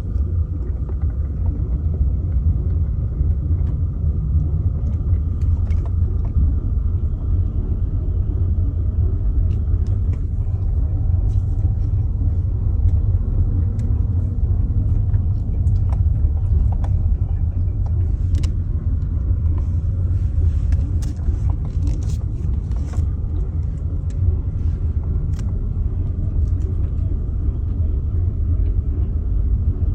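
A 2009 Audi A5 2.0 TFSI being driven: a steady low rumble of road and engine noise, with scattered sharp clicks on top, thickest past the middle. The clicks are the metallic clacking that the owner hears grow with road speed; its cause is unknown.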